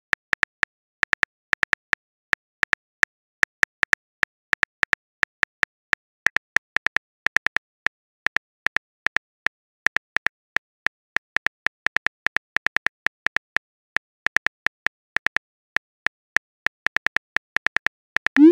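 Phone keyboard tap clicks, a rapid, unevenly spaced run of short clicks as a message is typed letter by letter, ending in a short rising swoosh as the message is sent.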